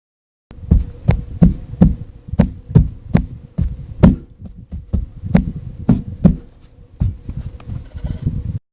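A rapid, irregular run of heavy thumps and knocks, about two to three a second, with a faint steady hum underneath; it starts about half a second in and cuts off abruptly near the end.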